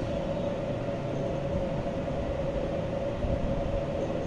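Steady mechanical room hum with one held tone.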